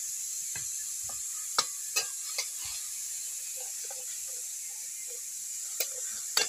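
Fish curry sizzling steadily in a metal wok, with a steel spatula scraping and knocking against the pan several times as it is stirred.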